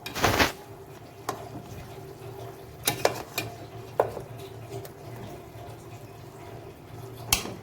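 A utensil knocking and scraping against a cooking pot as chicken pieces are turned over, several sharp knocks with the loudest just after the start, over the steady sound of the chicken cooking in its own juices.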